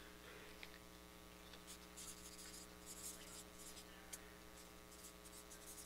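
Faint scratching of a marker writing on a paper sheet pinned to a wall, over a low steady electrical hum.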